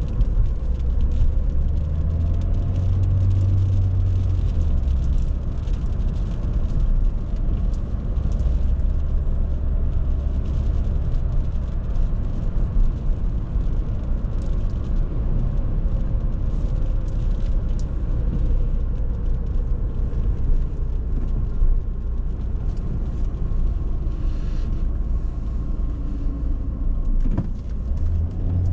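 Cabin sound of an Audi A6 C6's 2.4-litre V6 petrol engine driving at steady speed, mixed with road noise. Its low hum grows stronger a couple of seconds in and again near the end.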